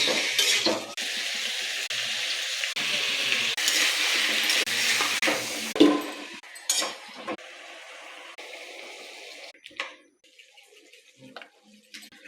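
Food sizzling in a cooking pot, with stirring scrapes and clinks: a loud hiss for about six seconds, then quieter, stopping near ten seconds and leaving a few light clinks.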